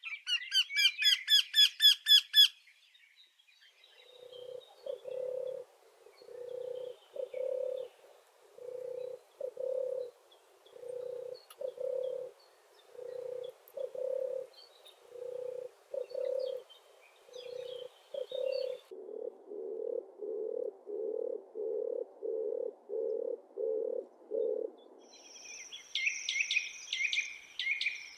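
Birds calling: a brief, loud, fast high-pitched twittering song at the start, then a long series of low, hollow hoots about one a second that quicken near the end, followed by high chirping.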